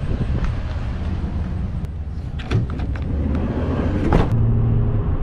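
A camper van's sliding side door is pulled along its track and shut with a loud slam about four seconds in. A low, steady motor-vehicle rumble runs underneath.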